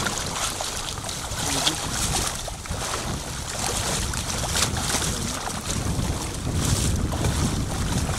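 Wind buffeting the microphone, over irregular swishing and sloshing as a person in a dry suit crawls off a snow-covered ice edge into slush-filled Arctic sea water.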